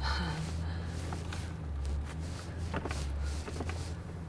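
Vehicle engine droning steadily from inside the cabin while climbing a rough mountain dirt road, with a few short knocks and rattles from the bumps.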